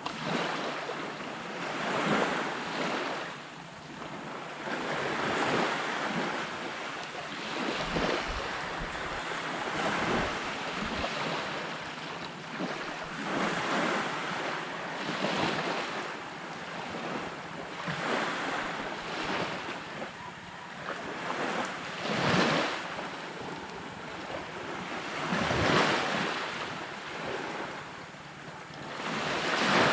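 Waves breaking and washing up on the beach, the surf swelling and falling away every few seconds, with wind rumbling on the microphone now and then.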